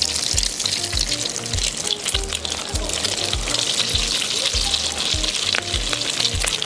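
Egg-coated beef kebabs deep-frying in hot oil: a steady, dense sizzle with many small pops. A background music track with a steady beat plays underneath.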